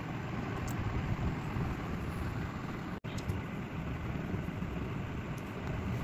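Steady background noise with a low rumble, broken by a brief dropout about halfway through.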